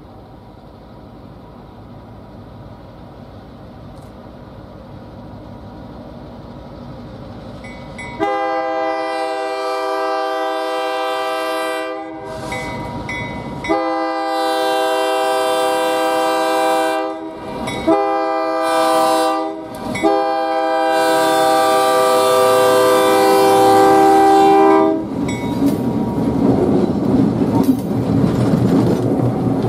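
EMD GP10 diesel locomotive approaching, its engine growing steadily louder. Its multi-chime air horn then sounds two long blasts, a short and a long, the standard grade-crossing signal. The locomotive then passes close by, engine and wheels loud, with clickety-clack from the rail joints.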